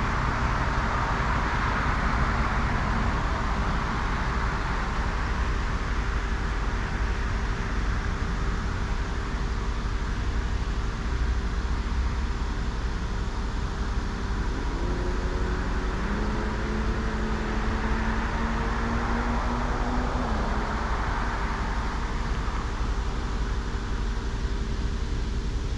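Highway traffic: the steady hiss of tyres on the road, swelling as vehicles pass, over a low engine rumble. About halfway through, one engine's pitch rises in steps for several seconds, like a vehicle accelerating through its gears.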